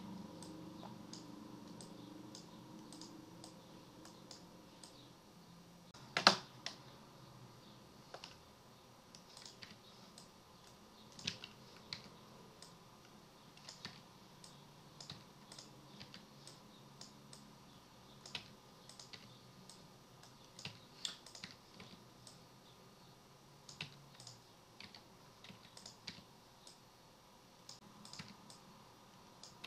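Scattered, irregular clicks of a computer keyboard and mouse being worked at a desk, with one much louder click about six seconds in.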